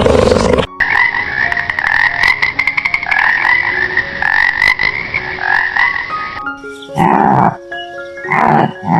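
Animal calls cut one after another: a big cat's roar breaks off under a second in, then a rapid rattling call with clicks repeats for about six seconds, and short loud low calls come near the end.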